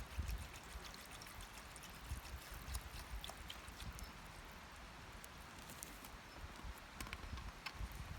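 Wood campfire burning: a soft steady hiss with many small, sharp crackles and pops scattered through it.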